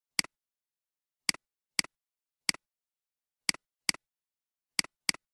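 Computer mouse clicks: eight short, sharp clicks at uneven intervals, each a press followed at once by a softer release.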